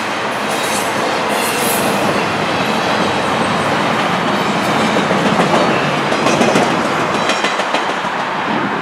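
CN double-stack intermodal freight train rolling past, its well cars' wheels clattering over the rail joints in a steady, loud rumble. The noise eases off right at the end as the last car goes by.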